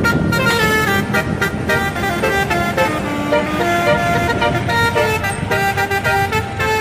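Indonesian bus telolet horn, a set of air trumpets, playing a quick tune of short notes that step up and down in pitch, over the low rumble of traffic.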